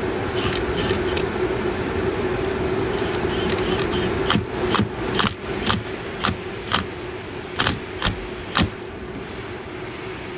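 Car engine idling steadily while a wrench tightens the CVT's fluid check plug back in, giving a string of sharp metallic clicks, about two a second, in the second half.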